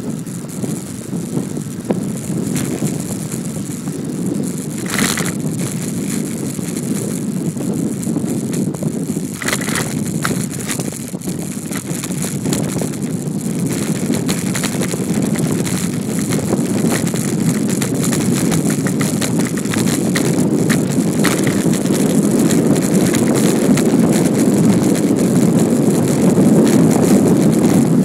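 Wind rushing over the microphone and tyre rumble from a Brompton folding bicycle being ridden, with a few sharp rattles from the bike. The rush grows gradually louder toward the end.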